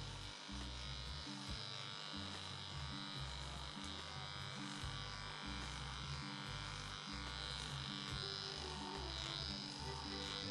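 Corded electric hair clipper with a 6 mm guard comb buzzing steadily as it is run up through the hair at the back of the head. Music plays faintly underneath.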